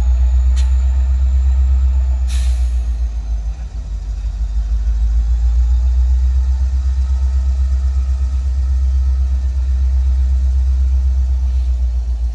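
Norfolk Southern diesel-electric locomotive's engine running with a steady deep rumble as it moves slowly along the track. Two sharp clacks come within the first few seconds.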